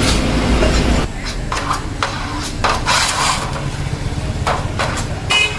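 Metal parts of a small tea kettle being worked in a workshop: about seven clinks and taps, irregularly spaced, over a steady low machine hum that drops in level about a second in.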